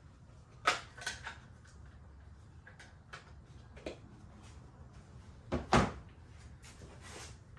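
Sharp plastic clicks and taps from a hobby-grade RC radio transmitter being handled around its AA battery holder. A heavier double knock comes about five and a half seconds in.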